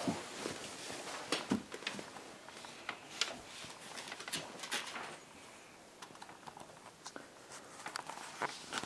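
Glue spreader scraping and dabbing white glue across a sheet of brown paper, in scattered short scrapes and light taps, with paper handled on the table. It goes quieter for a couple of seconds past the middle.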